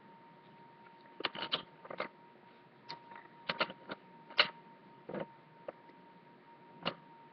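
Small irregular clicks and taps of hard candy tablets and a plastic Pez dispenser being handled as the tablets are loaded into it, about a dozen sharp clicks with the loudest a little past the middle. A faint steady high tone hums underneath.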